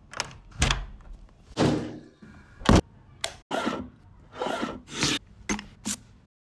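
A hand knocking and tapping on a countertop: about a dozen irregular knocks, some sharp and short, some duller thuds.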